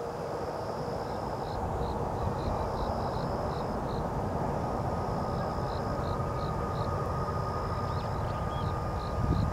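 Jet engines of a Boeing 777-300ER on final approach, heard from the ground: a steady low rumble, with a thin whine coming in about halfway through. Insects chirp in an even pulse behind it, and a brief low thump comes near the end.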